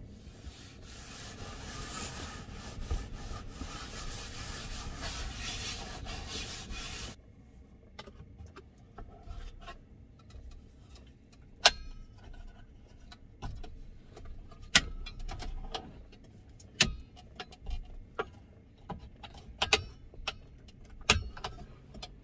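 A steady hissing noise that cuts off suddenly about seven seconds in, then scattered clicks and several sharp knocks as a varnished wooden fold-down table with brass hinges is handled and folded away.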